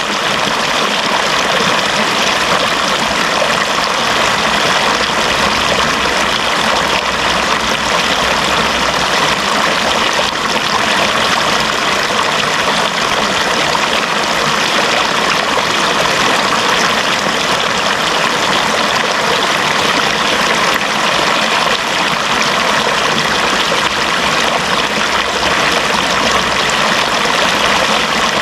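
Flowing water running steadily, an even, unbroken rush with no pauses or separate splashes.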